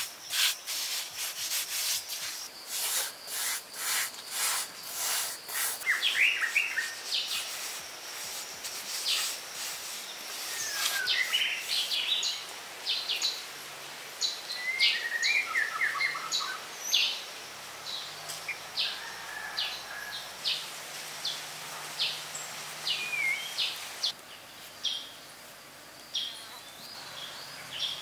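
Repeated short scraping and rubbing strokes on wet mud and clay: a hand smoothing mortar and a thin stick scratching fur lines into a clay sculpture. Small birds chirp now and then behind it.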